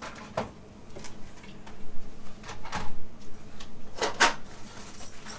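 Knocks and clicks of plastic tool cases and sockets being handled and set down, with a louder pair of knocks about four seconds in.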